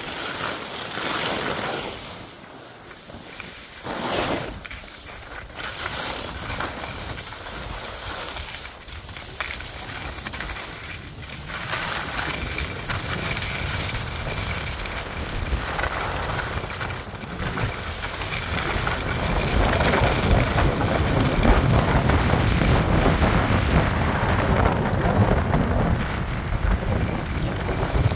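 Wind rushing over the microphone of a skier's camera during a downhill run, with skis swishing over packed snow through the turns. The low wind rumble grows louder in the second half as the speed builds.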